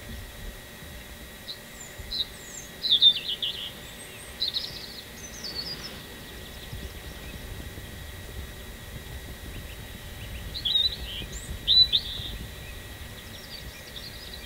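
Birds calling with short, high chirps in two clusters, about three seconds in and again near the twelve-second mark, over a low steady outdoor rumble.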